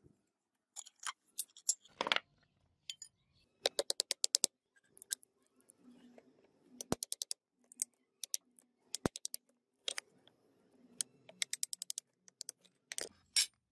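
Sharp metallic taps and knocks of a small hammer driving a flat-blade screwdriver into an old wooden knife handle, splitting the wood off the rusty tang. There are quick runs of light taps and a couple of single hard strikes, about seven and nine seconds in.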